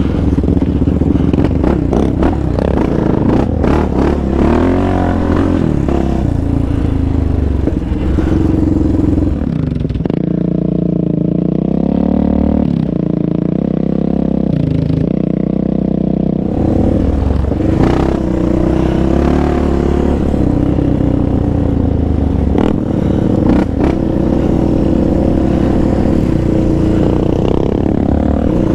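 Yamaha Raptor 700 sport quad's single-cylinder four-stroke engine running and revving up and down as it is ridden over a rough trail, with knocks and clatter from the bumps. For several seconds in the middle the engine is heard more steadily from beside the trail as a quad comes toward it.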